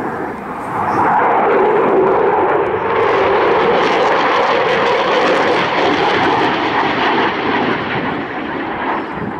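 Jet noise from a Eurofighter Typhoon's twin Eurojet EJ200 turbofans as the jet flies its display. The noise swells about a second in and then holds loud and steady, with a faint steady tone running through it.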